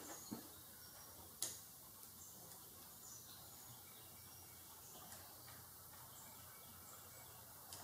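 Near silence, with one sharp click about a second and a half in and a few faint ticks: a flathead screwdriver being set into and turned on a hose clamp screw to loosen it.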